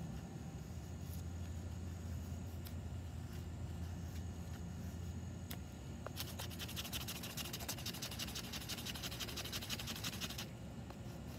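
A knife blade carving and scraping down a wooden stick to raise curled shavings for tinder: a few separate scrapes, then about four seconds of fast, continuous rasping scraping from a little past the middle.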